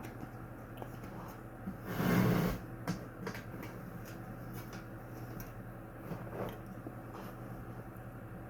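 Handling noises from the box fan's parts: a brief rustling scrape about two seconds in, then a few light clicks and knocks, over a steady low hum.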